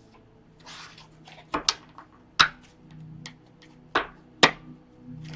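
Tarot cards being handled and laid down on a table: a handful of sharp taps and clicks, two close together about one and a half seconds in and two more around four seconds in, over faint steady background music.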